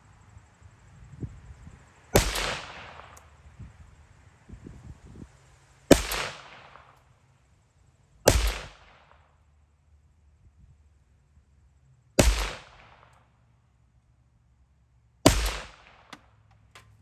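Kel-Tec P50 pistol in 5.7x28mm firing five single, deliberately paced shots, two to four seconds apart, each cracking sharply and trailing off in a short echo.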